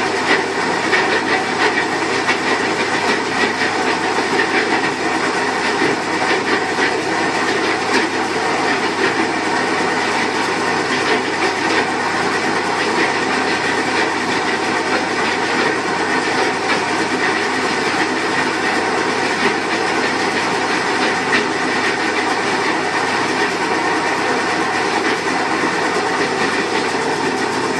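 Washing machine running with a loud, steady abnormal mechanical noise. It comes from a failing part that the owner fears will leak grease into the drum.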